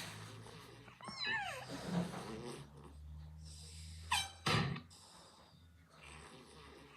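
A sleeping pet snoring. Each breath has a squeaky whistle that falls in pitch, a low rumble, and a sharp snort: the whistle comes about a second in and the snort about four seconds in.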